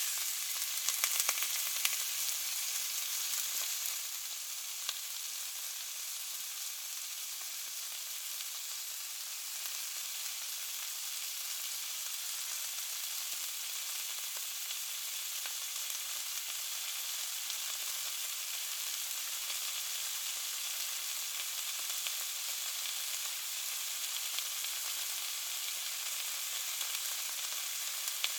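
Meat sizzling in a frying pan: a steady hiss with scattered crackles and pops. The crackling is a little louder and busier for the first few seconds, then settles to an even sizzle.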